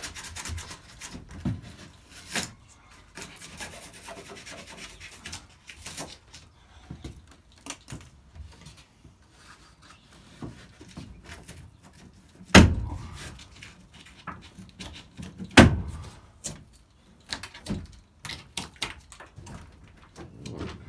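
The plastic cab headliner panel of a Mercedes Sprinter being pried and pulled free from the roof, with scattered clicks and rubbing as the trim and popper clips are worked loose. Two loud knocks come about twelve and fifteen seconds in.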